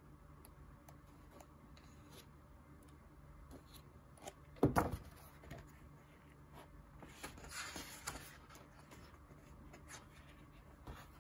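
Pages of an oversized hardcover comic book being turned by hand: one page flips over loudly a little under halfway through, then a longer rustle of paper sliding follows a couple of seconds later, with faint small ticks of fingers on paper around them.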